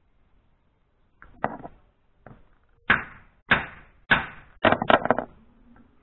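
Repeated sharp knocks of wood on wood as a BMW M52B28 hydraulic lifter is banged against wooden blocks to force its inner piston out: about eight knocks, the last few in quick succession.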